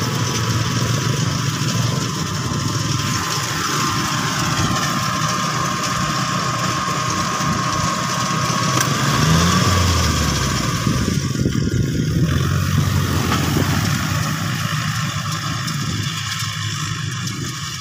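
Honda motorcycle engines and a tractor engine running steadily, with an engine revving up about nine seconds in.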